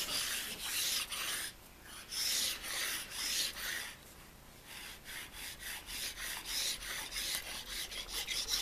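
Abrasive stone file pushed forward and back by hand over the freshly scraped cast-iron ways of a 6T12 milling machine, giving a gritty rasping hiss with each stroke. The first strokes are long and slow. From about five seconds in they become short and quick, about three a second. This is stoning to finish the scraped surface.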